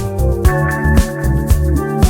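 Background music with a steady beat, about two beats a second, over sustained pitched tones.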